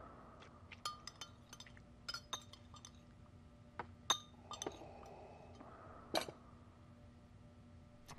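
Scattered light clinks of drinking glasses and cutlery at a quiet dinner table, the loudest about four seconds in and another about six seconds in, with a faint breathy hiss between them.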